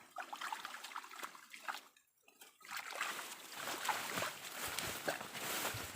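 Water trickling and splashing in a small stream, with scattered small clicks and a brief drop-out about two seconds in.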